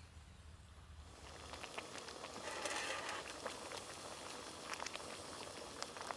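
Water boiling in a small pot with a curry pouch heating in it: a steady bubbling hiss with many small pops, starting about a second in.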